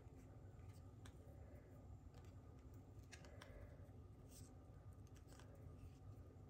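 Near silence with a few faint small clicks and rustles from handling paper craft pieces, as the backings are peeled off glue dots.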